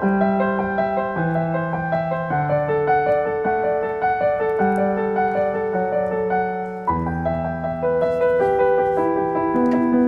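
Background piano music: sustained notes and chords changing every second or so.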